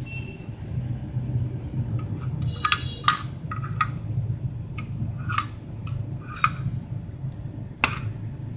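Metal clicks and clinks from a compact folding card-type gas stove being handled and turned over, its hinged metal pot supports and steel body knocking, with a sharper click near the end.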